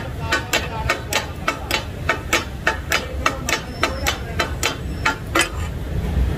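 Takatak: metal chopping blades striking a large flat metal griddle (tawa) in a quick clatter, about five strikes a second, as kidneys and kapooray are chopped. The strikes stop about five and a half seconds in.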